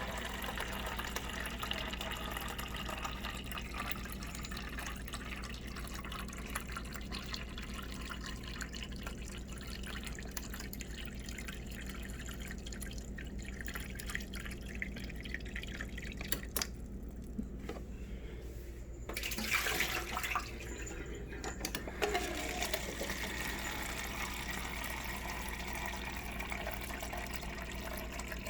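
Refrigerator water dispenser running into a plastic cup, spitting and dripping as trapped air is purged from the line after a new water filter is fitted. The flow goes quieter a little past the middle, then gives a louder spurt about two-thirds of the way through before running steadily again.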